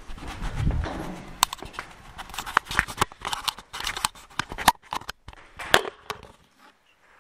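A run of sharp clicks, taps and rustles from small objects and a tablet case being handled on a desk close to the microphone, with a low bump under a second in. It dies away about six and a half seconds in.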